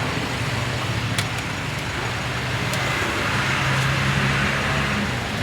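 Steady roadside traffic noise, with the low hum of a nearby vehicle engine running and a few faint clicks.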